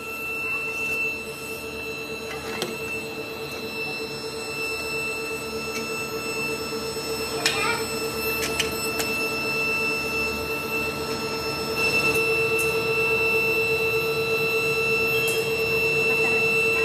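Steady electric whine of an air blower feeding a pit furnace melting scrap metal, getting louder about twelve seconds in, with a few light metal clinks as scrap is handled with tongs.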